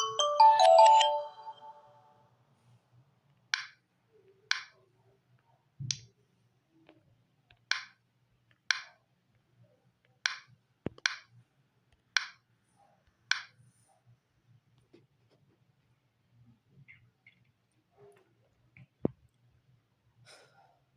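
The last notes of a marimba-like alarm tone from a Samsung Galaxy Tab A9 tablet's speaker, fading out about a second and a half in. Then about ten light, sharp clicks roughly a second apart, and a few faint small knocks near the end.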